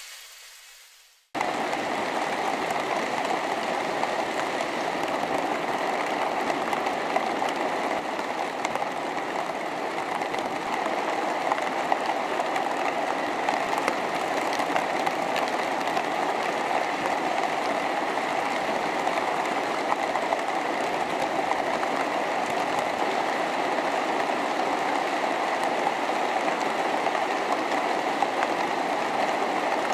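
Hundreds of motor-driven wooden sticks hanging on ropes, knocking and scraping inside cardboard boxes: a dense, steady crackling rattle made of countless small ticks. It cuts in suddenly about a second in, as a fainter hiss fades away.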